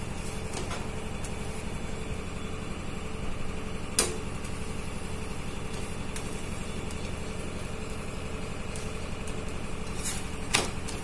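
Chapati cooking on an iron tawa over a gas stove: a steady rumble with a faint hum runs throughout. A metal spatula clicks sharply against the tawa about four seconds in and twice near the end.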